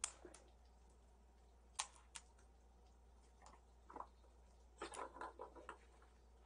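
Faint scattered light clicks and taps over a low hum, with a quick run of them about five seconds in.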